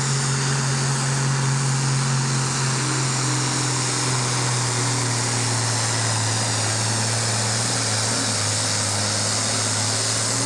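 International Harvester farm tractor's diesel engine running hard at full load and steady pitch while pulling a weight-transfer sled in a stock-class tractor pull.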